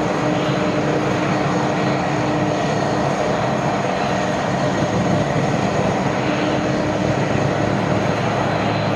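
Airbus A330 airliner's jet engines running steadily: a continuous rush with steady whining tones over it.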